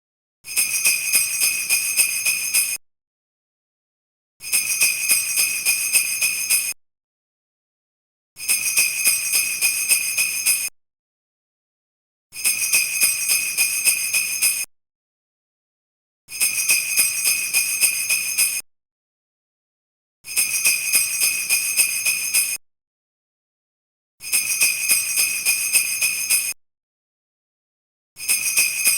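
Sleigh bells shaken in bursts of about two seconds, each a quick run of jingles, repeating every four seconds with complete silence between.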